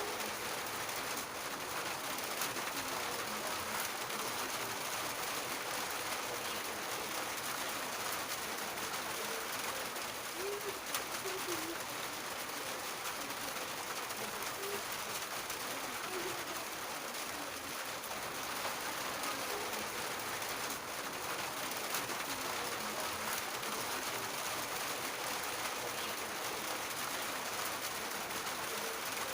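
Steady rain falling on a roof, an even patter with no let-up. A bird gives a few short low calls now and then, about halfway through and near the end.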